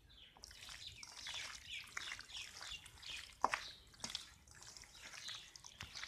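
Wet squelching and squishing as a hand kneads marinated chicken pieces and sliced shallots in a stainless steel bowl, with one sharper knock about three and a half seconds in.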